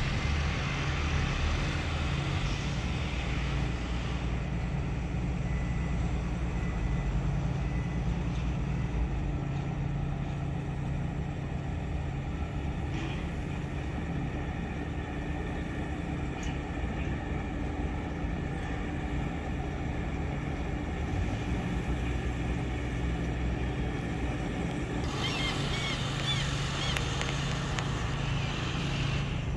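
Steady low hum of a ship's engines running, with a faint high chirping near the end.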